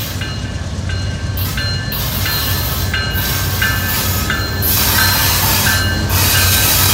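Slow-moving CSX freight train's diesel locomotives rumbling as they approach, with a bell ringing about twice a second. The sound grows louder as the lead locomotive draws level, near the end.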